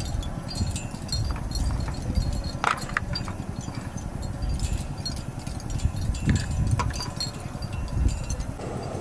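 A plastic egg case being opened and eggs handled: a few light clicks and knocks of plastic and eggshell, over a low, uneven rumble.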